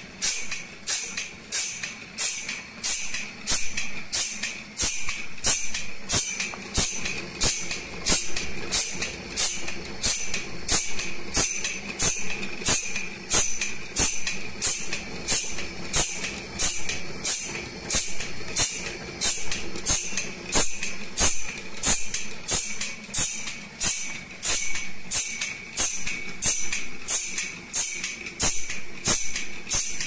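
Automatic band saw blade sharpening machine running: the grinding wheel grinds the blade's teeth one after another, a short sharp hiss about twice a second in an even rhythm, over a steady high whine.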